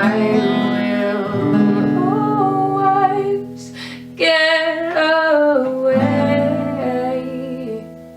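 Acoustic guitar playing with a singing voice holding long notes. It falls quieter near the end as the song closes.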